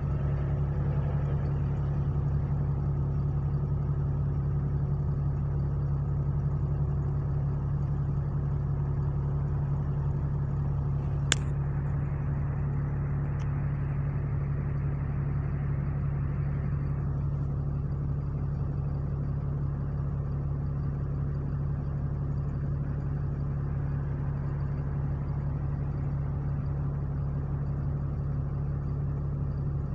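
Double-decker bus engine running with a steady low drone, heard from inside on the upper deck. One sharp click about eleven seconds in.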